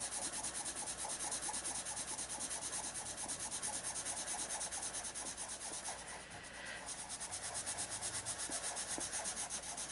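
Colourless blender pencil scrubbing back and forth over a coloured-pencil swatch on paper, a fast, even scratching of about five strokes a second, easing off briefly about six seconds in.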